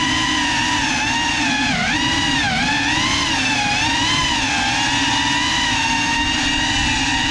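Small FPV quadcopter's motors and propellers whining as it flies, the pitch rising and falling with the throttle, with a dip about two seconds in.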